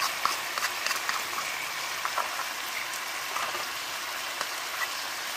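Sliced beef simmering and sizzling in its juices in a non-stick pan: a steady frying hiss with scattered small pops and crackles, a little busier in the first second.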